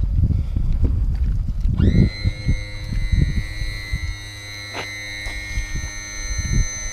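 Gusty wind rumbling on the microphone. About two seconds in, background music swells in on a held, sustained chord.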